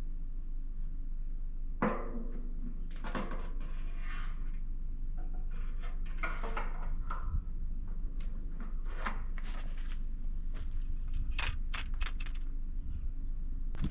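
Hand work on metal truck parts: scattered clinks, scrapes and clicks, with one sharp knock that rings briefly about two seconds in and a quick run of clicks near the end, over a steady low hum.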